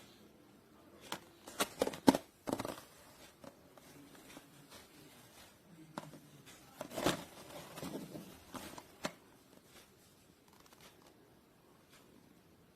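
Handling noise from the nylon microphone clamp: scattered sharp clicks, taps and rubbing of hard plastic in two short spells, about a second in and again around six to nine seconds in.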